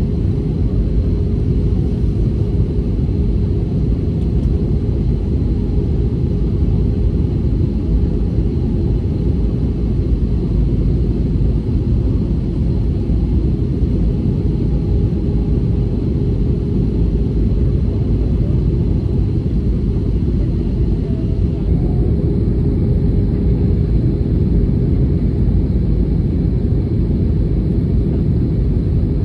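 Jet airliner cabin noise in flight: a steady low rumble of engines and airflow with a constant hum running through it.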